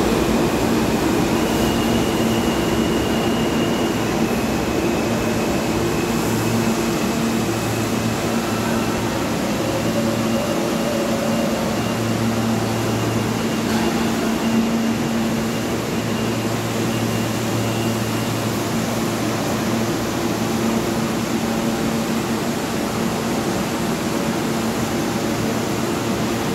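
New York City subway train running in the station: a steady rumble with a low hum and a faint high whine.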